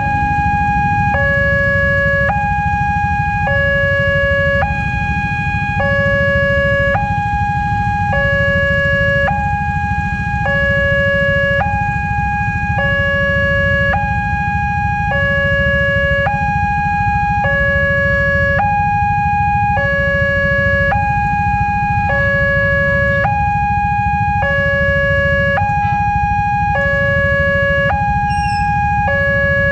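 Railway level-crossing warning alarm sounding while the barrier is down: an electronic two-tone signal that alternates steadily between a high and a low tone, switching about every half second. A steady low rumble of road traffic runs underneath.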